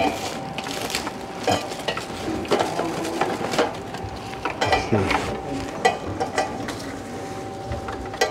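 Scattered clinks and knocks of objects being handled and set down, over a faint steady tone.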